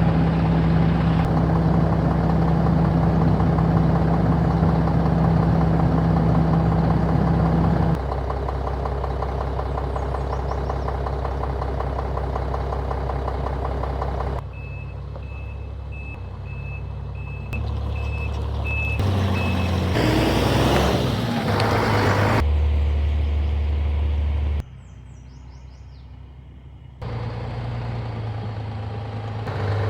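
Concrete pump truck's heavy diesel engine running, heard in several short clips joined by abrupt cuts. Midway through, a reversing alarm beeps evenly for about five seconds.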